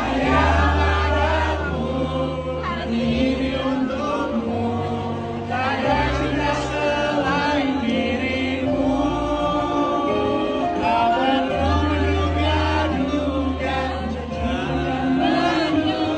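Several voices singing a pop ballad together over a band or backing track, with a held bass line moving beneath.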